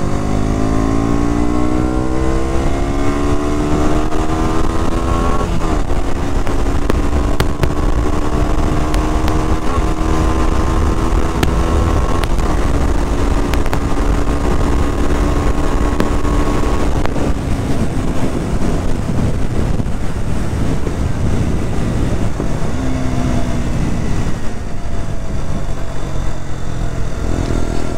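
KTM 125 Duke's single-cylinder four-stroke engine under hard acceleration through the gears. The revs rise, drop at an upshift about five seconds in, rise again to a second upshift about twelve seconds in, climb once more, then fall away as the throttle is closed, with a brief pull again near the end. Wind rushes over the microphone throughout.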